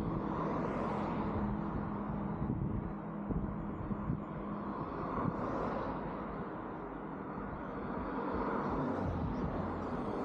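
Street traffic: cars passing one after another, each swelling up and fading away, over a steady low rumble. A low engine hum sits under the first half and fades out about halfway.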